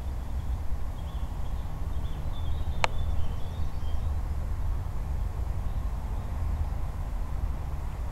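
Outdoor ambience dominated by wind rumbling on the microphone, with faint bird chirps and a single sharp click about three seconds in.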